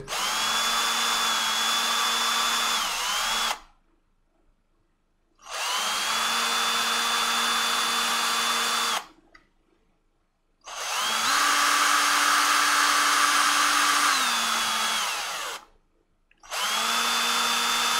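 Handheld power drill with a 2.5 mm bit drilling out screw holes in a 3D-printed plastic fan shroud. It runs in about four separate bursts of three to five seconds, the motor whine rising as it spins up and falling as it stops each time. The third burst runs at a higher speed.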